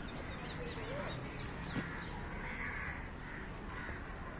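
Birds calling in garden trees, crows cawing several times among smaller chirps, over a steady outdoor background hum.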